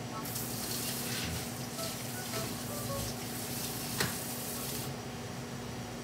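Tap water running into a kitchen sink, a steady hiss that cuts off about five seconds in, with a single sharp knock a second before. A steady low hum runs underneath.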